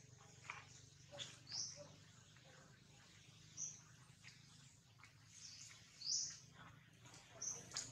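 Faint, short high-pitched bird chirps every second or two, the loudest about a second and a half in and about six seconds in, over a low steady background hum.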